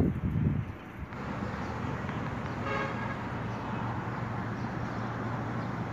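Steady road traffic noise with one short vehicle horn toot about three seconds in. A few low thumps in the first second.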